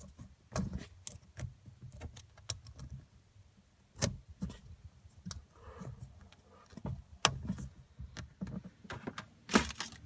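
Irregular small clicks and taps of a plastic push-fit PEX coupling and its collet clip being handled and fitted, with a few sharper clicks among them.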